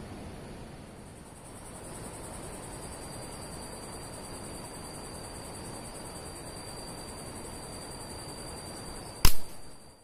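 Insects droning steadily in high, thin tones, then about nine seconds in a single sharp shot from a scoped air rifle aimed at a bird in the foliage.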